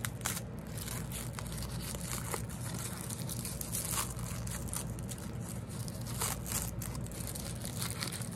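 Small printed wrapper around a tiny LOL Surprise doll accessory being crumpled and peeled open by hand: irregular crinkling and rustling, with sharper crackles now and then.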